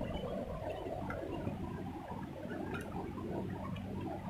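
Shallow river water flowing over rocks: a steady low gurgling burble, with a couple of faint clicks.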